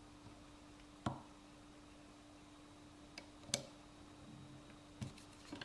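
Faint, sharp clicks of a lock pick working the pins of a Yale pin-tumbler lock: one about a second in, two around three and a half seconds, and a quick run of clicks near the end, over a faint steady hum.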